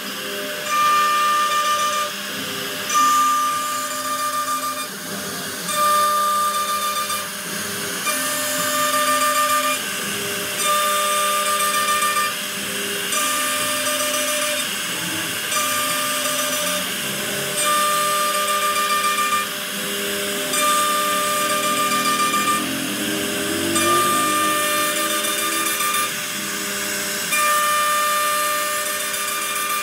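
CNC router carving a door panel: the spindle whines over a hiss of cutting, and a whining tone comes and goes with louder stretches about every two seconds as the bit makes repeated passes.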